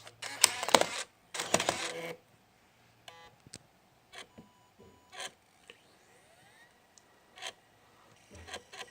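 Laptop slot-loading optical drive taking in a disc: handling noise at first, then scattered mechanical clicks and faint rising whines as the drive tries to spin up and read it.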